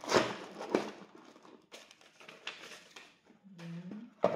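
Cardboard box and plastic-wrapped facial wipes being handled: rustling and light knocks, loudest in the first second, with a sharp tap near the end.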